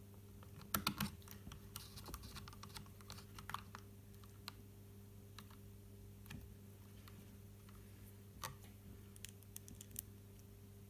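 Scattered small clicks and taps of a small screwdriver and tiny screws on the plastic body of a DJI Mavic Pro drone as its top body screws are put back in, over a steady low hum.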